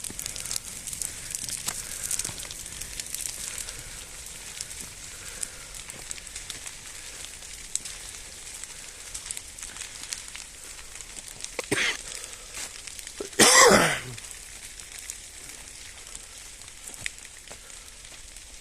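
Forest fire crackling: burning wood and brush popping with many small sharp cracks. A short loud sound comes about twelve seconds in, then a louder burst lasting under a second.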